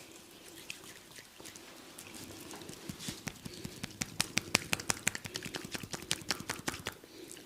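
Hands massaging oiled skin of the neck and shoulders: a run of quick slaps and smacks, several a second, busiest in the middle.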